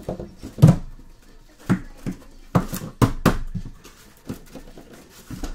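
Cardboard shipping case handled and opened by hand: its flaps and contents knock and scrape in a string of about half a dozen sharp thuds with rustling between them, the loudest under a second in.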